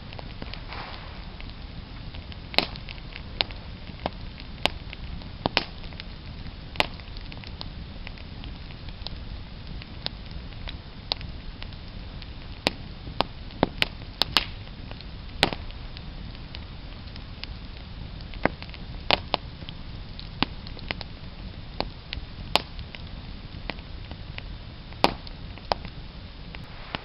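Wood campfire crackling: irregular sharp pops and snaps over a steady low background rumble.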